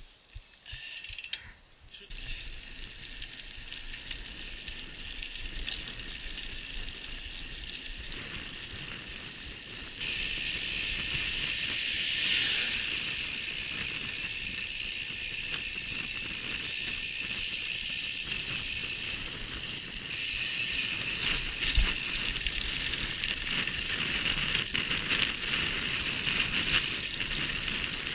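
Mountain bike being ridden: a steady rolling hiss of the tyres with the clicking of the drivetrain and freewheel hub. After a few sharp clicks at the start, the sound gets abruptly louder about ten seconds in and again near twenty seconds.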